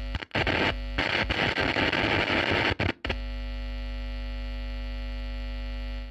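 Electrical hum and static sound effect: a steady buzzing hum broken by loud bursts of crackling static for the first three seconds, then the hum alone, cutting off suddenly at the end.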